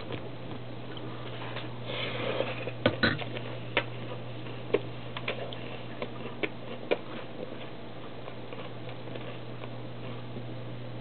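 Scattered light clicks and taps of someone eating breakfast, irregular and busiest in the first half, over a steady low hum.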